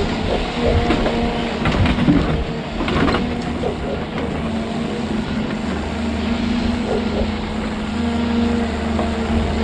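Heavy construction machinery running steadily with a constant engine hum, with a few sharp metal clanks and scrapes in the first three seconds.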